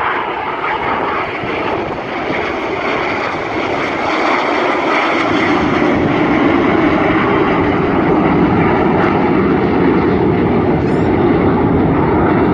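Aircraft flying over at an air show: a loud, steady engine noise that grows louder and deeper about halfway through, then holds.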